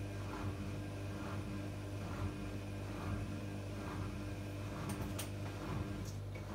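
Zanussi integrated washing machine running its interim spin on a synthetics 40° cycle: a steady motor hum with a soft swish from the drum about once a second. A few faint ticks come about five seconds in.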